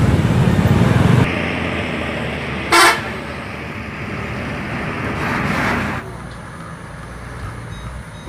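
Tour buses on the move, their engines rumbling, with one short horn blast about three seconds in.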